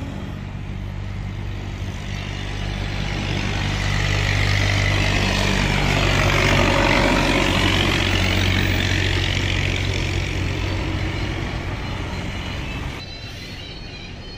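Bus driving past close by: the diesel engine and tyres grow louder to a peak about halfway through, then fade away. The sound drops abruptly about a second before the end.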